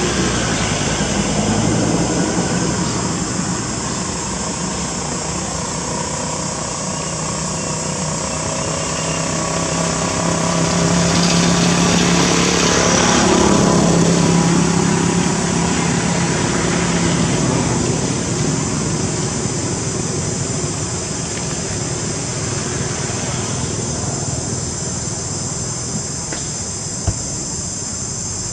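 Outdoor insect buzzing, steady and high-pitched, under the low drone of a distant passing engine that swells to its loudest about halfway through and then fades.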